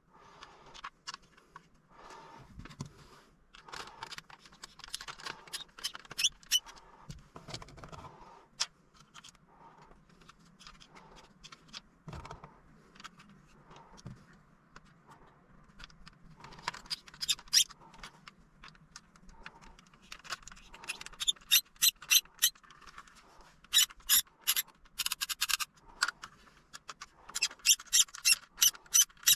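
Centre-console trim parts being handled and fitted, giving scraping, squeaking and scattered sharp clicks. The clicks come thicker and louder in the second half, with rapid runs near the end.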